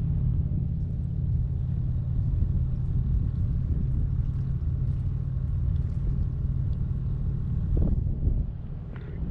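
Steady low rumble of a small fishing skiff's motor running as the boat moves along.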